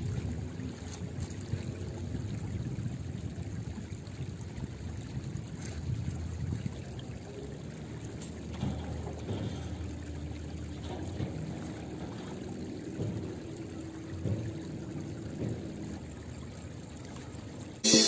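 Steady low rush of river water along a stony bank, with a few faint soft knocks. Loud electronic music cuts in at the very end.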